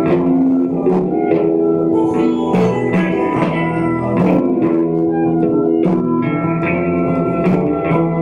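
Live rock band playing an instrumental passage: fuzz electric guitar holding long, steady notes over bass, with drum and percussion hits throughout.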